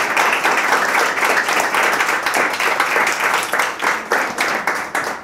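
Studio audience applauding, many hands clapping together; the applause thins out and fades away near the end.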